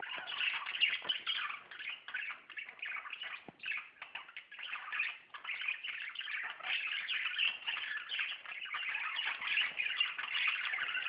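A group of budgerigars (budgies) chattering and warbling continuously, a dense run of rapid overlapping chirps and squawks.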